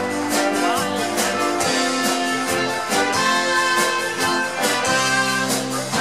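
Circus music with held notes over a steady beat of about two a second.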